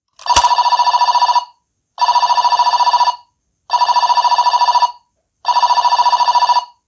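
Dekaranger SP License DX toy changer's electronic phone-ring sound effect: a click, then four trilling rings of about a second each, evenly spaced.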